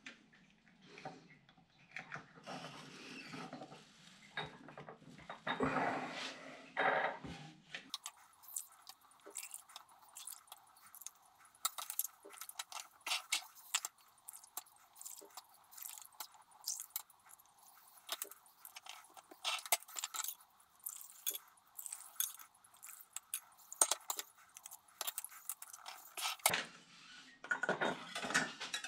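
A dense run of small sharp clicks and clinks from glass bottles and their lids being handled, after a few seconds of softer knocks and rustling.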